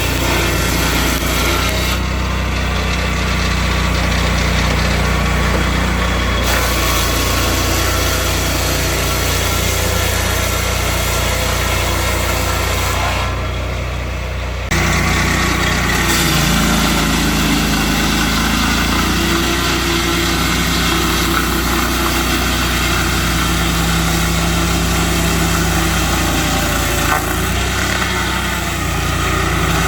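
Turbosawmill swingblade portable sawmill running, its engine going steadily throughout, with the saw's sound changing abruptly a couple of times.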